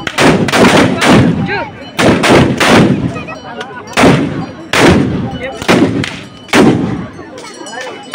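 A ragged volley of gunshots from traditional long-barrelled black-powder guns: about ten loud shots at uneven intervals, some in quick runs of two or three, each trailing off briefly before the next.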